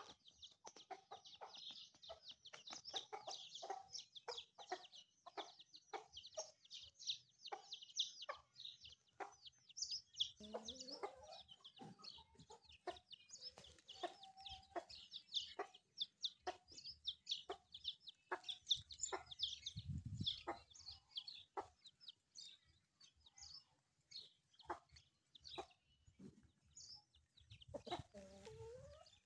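Chickens clucking faintly: a steady run of short, high chirping calls, with a few longer, lower clucks now and then.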